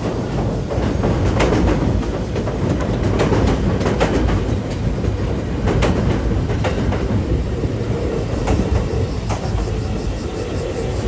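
JR West 221 series electric train passing. Its wheels rumble steadily on the rails, with irregular clicks as they cross rail joints.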